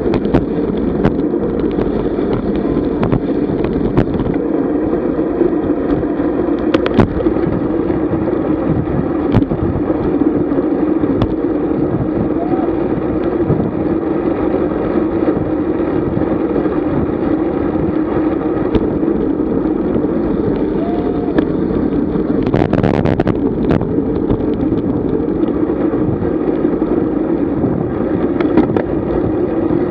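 Steady muffled rush of wind and tyre-on-road noise from a road bicycle riding along, with scattered small clicks and rattles. A brief louder rush comes about three quarters of the way through.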